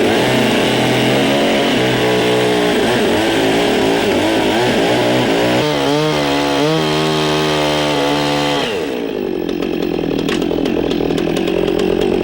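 Two-stroke chainsaw running under load, its engine pitch wavering up and down as it cuts into a log. About three-quarters of the way through, the engine tone gives way to a quieter, noisier sound with small clicks.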